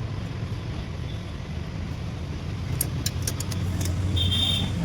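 Car engine running steadily at idle, a low even drone, with a few sharp clicks about three seconds in.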